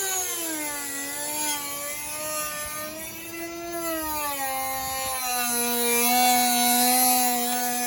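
Handheld rotary grinding tool running steadily as it grinds the fiberglass inner frame of the hood around the latch hole. Its whine wavers, then sags to a lower, steady pitch for the last few seconds as it bears on the material.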